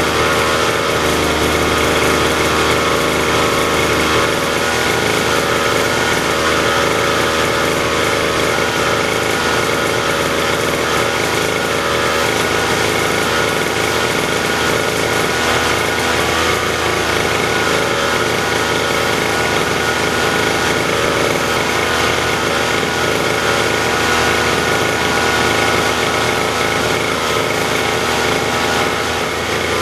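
Lawn mower engine running steadily at a constant speed, with no surges or misfires.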